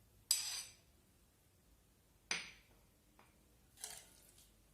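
A spoon clinking against a bowl as spoonfuls of yogurt are added: a sharp ringing clink about a third of a second in, a second one just after two seconds, then a faint tick and a soft scrape near the end.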